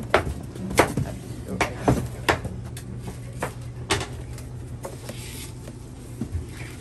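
Cardboard produce boxes being shifted and handled, giving a run of sharp irregular knocks and bumps over a steady low hum; the knocks thin out in the last couple of seconds.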